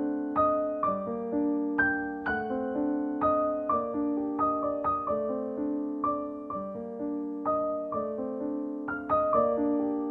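Background solo piano music: a gentle, flowing melody of struck notes that fade away, played over held lower notes at an even pace.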